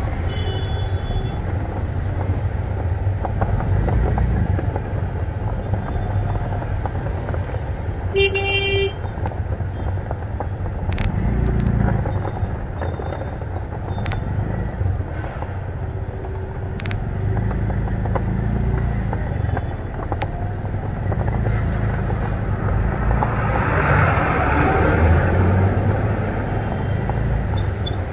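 Bajaj four-stroke auto-rickshaw engine running in slow traffic through rain-flooded streets, a steady low rumble. A short vehicle horn toots about eight seconds in, and a rush of hissing water from wheels through standing water swells near the end.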